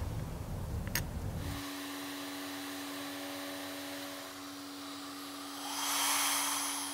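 Vacuum cleaner running with a steady whine, sucking air through a hose into a homemade vacuum-forming box to pull plastic film down over a fishing lure. A low rumble stops about a second and a half in, and near the end a louder rush of hissing air swells for about a second.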